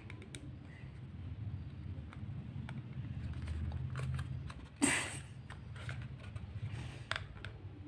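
Fingers working at a tight paperboard cosmetics carton, trying to open it: faint scattered taps and card scrapes, with one louder short rustle about five seconds in, over a low steady hum.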